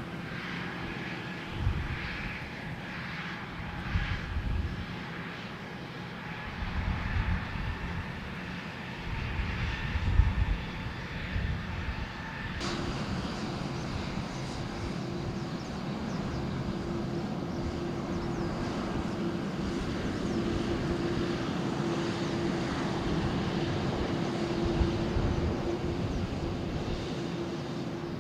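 Jet airliner engines during takeoff, a steady whine with gusts of wind on the microphone. About halfway through the sound changes abruptly to a steadier, fuller engine noise with a low steady hum.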